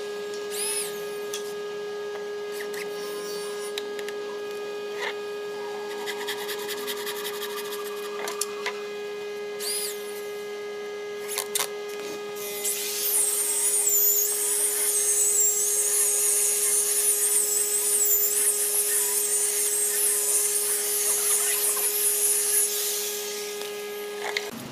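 A power tool running with a steady hum, with scattered clicks and taps. About halfway through, a louder, high-pitched, wavering whine starts and holds until near the end, as the tool works wood.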